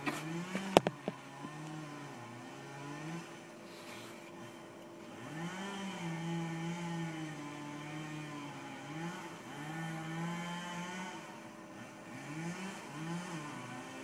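Stihl two-stroke chainsaw revving up and down in repeated passes while cutting, its pitch rising, holding high, then dropping back each time. A few sharp knocks come about a second in.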